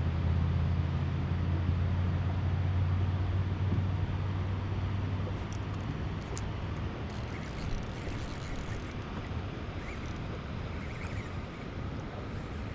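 A low, steady motor hum that fades away about five seconds in, over a constant hiss of wind and water.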